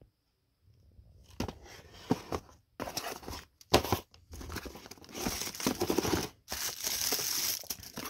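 Cardboard packaging being handled inside an open box: an insert and flaps pulled aside, with plastic-bagged accessories shifting. Irregular bursts of rustling and scraping start about a second in, with a few sharp knocks.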